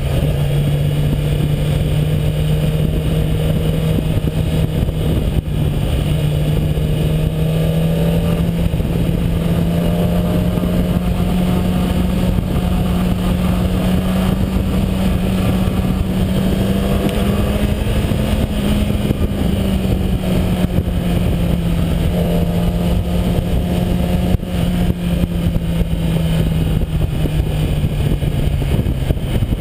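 Stock-exhaust 2011 Kawasaki ZX-10R inline-four motorcycle engine running steadily at cruising speed. The pitch climbs gently to a peak about two thirds of the way through, then eases back down. Wind noise rushes on the microphone throughout.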